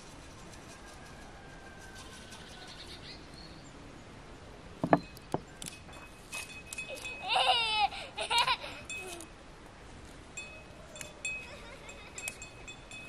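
A farm animal bleating twice in a quavering, wavering voice, one call just after the other about halfway through. A single sharp knock, the loudest sound, comes a couple of seconds before the calls.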